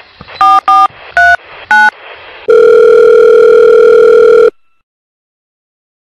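Phone keypad tones: four short two-note beeps as a number is dialed. About two and a half seconds in, a two-second ringback tone sounds while the call rings through, then stops.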